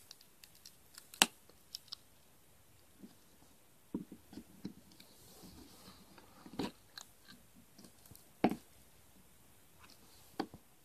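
Scattered small clicks and crackles from a plastic pry tool working under a pouch battery and peeling it up off its double-sided adhesive tape, with a few sharper snaps among them.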